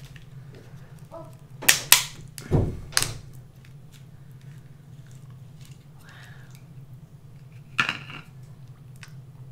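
Cooked king crab leg shell being cracked and snapped apart by hand. There are a few sharp cracks between about one and a half and three seconds in, and one more near the end.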